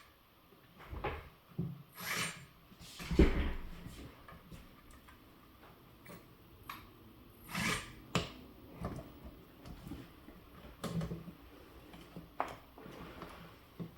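Irregular clicks, knocks and scrapes as the track links of an RC crawler loader are handled and pushed onto its sprocket. The loudest knock comes about three seconds in.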